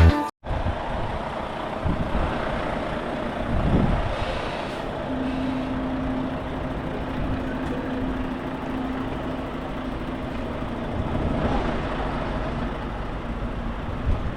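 A heavy vehicle's engine running steadily outdoors, with a steady hum from about five seconds in to about twelve.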